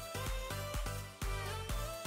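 Background pop-electronic music with a steady beat, deep bass and a sustained melody.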